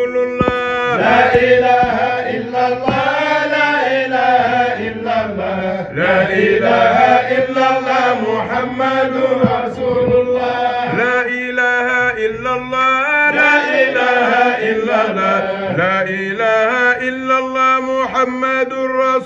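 Voices chanting an Islamic zikr in long, held melodic phrases over a steady held tone.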